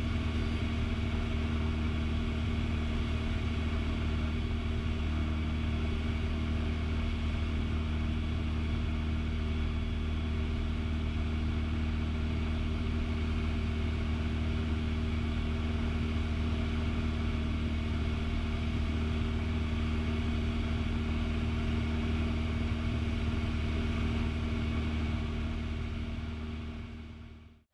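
The 1976 Cessna 182P Skylane's piston engine, upgraded by P.Ponk to 270 horsepower, and its propeller running with a steady, unchanging drone in flight. It fades out quickly near the end.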